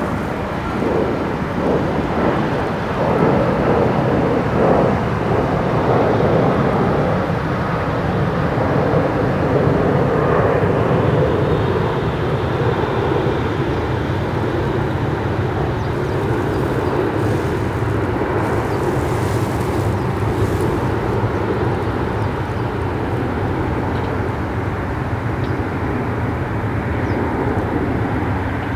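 Jet airliner engines passing on the landing approach: a steady, loud engine rush, its pitch shifting and gliding over the first several seconds.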